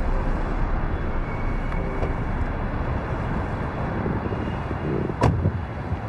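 Steady city street traffic noise, with a car door shutting in one sharp thump about five seconds in.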